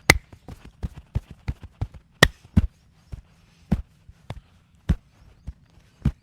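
Percussive massage strikes: a quick, irregular series of sharp taps and smacks on the body, with two louder cracks, one just after the start and one about two seconds in.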